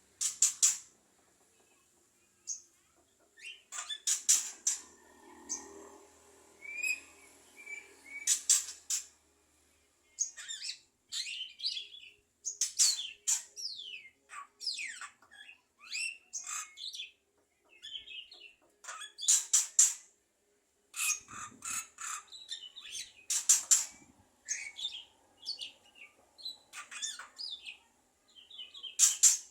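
Javan myna in full song: a busy run of harsh, raspy notes mixed with quick rising and falling whistled chirps, coming in bursts with short pauses between them.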